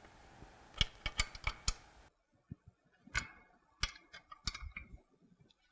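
Sharp, irregular metal clicks from a hand wrench tightening the bolts that join a Bell & Gossett Series 60 pump's motor bracket to its bearing assembly, a few clicks at a time about a third of a second apart.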